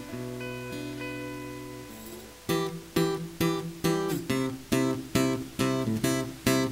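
Acoustic guitar playing: a chord left ringing for about two and a half seconds, then steady strummed chords, a little over two strums a second.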